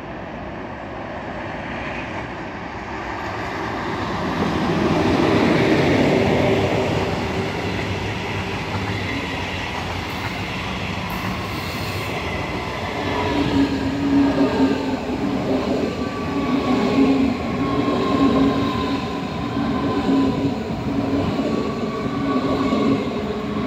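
Electric trains passing on the line: a DB class 114 electric locomotive's double-deck regional train and a pair of DB class 430 S-Bahn electric multiple units, the S-Bahn close by. Wheels run on the rails, with a steady electric drive hum and a whine that falls in pitch in the second half.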